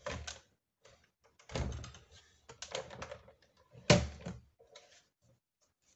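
Paper being shuffled and knocked against a Cinch binding machine as a sheet is lined up. There are several dull knocks, and the loudest, sharpest one comes about four seconds in.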